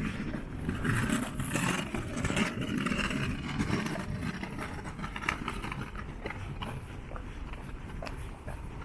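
Footsteps along a park path, as short irregular ticks over a steady outdoor background hum.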